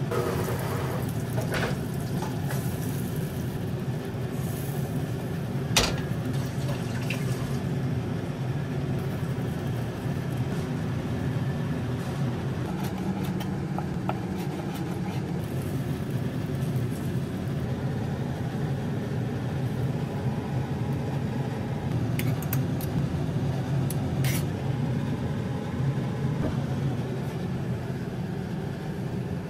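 Steady low hum with a few sharp clinks and knocks of pans and utensils.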